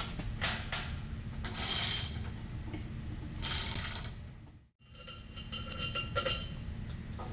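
Socket ratchet wrench clicking in short bursts as the cover bolts are turned out of a flow control valve. A light metallic ringing follows in the second half.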